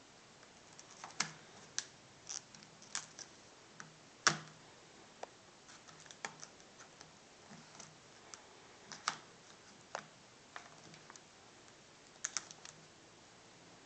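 Scattered light clicks and taps of plastic and metal as a replacement LCD panel is handled and fitted into an Acer Aspire One netbook's lid, with one sharper knock about four seconds in.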